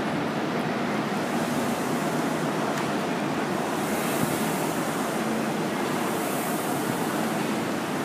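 Indoor rowing machine's fan flywheel whooshing steadily, the rush swelling with each stroke about every two seconds.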